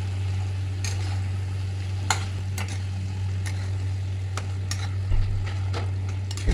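Pan of dudh lauki (bottle gourd cooked in milk) on the heat just after ghee is added: scattered sharp clicks and crackles at irregular intervals over a steady low hum.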